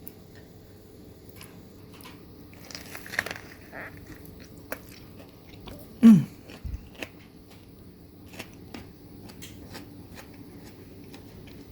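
Crunching and crackling food sounds: scattered small snaps and clicks, with a busier patch about three seconds in. About six seconds in comes the loudest sound, a short falling squeak, then a low thump.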